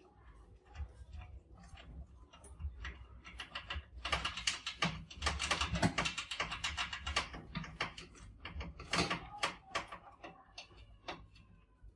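Many mice scrabbling and climbing on wire mesh and glass: a run of quick, dry clicks and scratches of claws, thickest in the middle.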